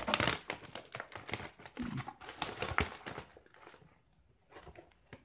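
Foil-laminate freeze-dried meal pouch crinkling and crackling as it is pulled open by hand, with many sharp clicks as the press-seal strip comes apart. The sound is busiest for the first three seconds and then fades to a few soft rustles.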